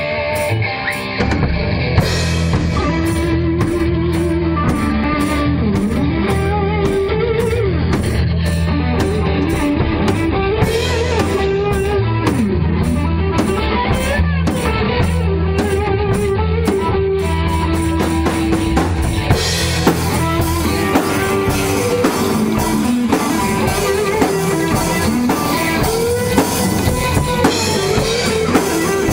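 Rock music with guitar, bass and drum kit, playing steadily; the cymbals open up and fill the top end about two-thirds of the way through.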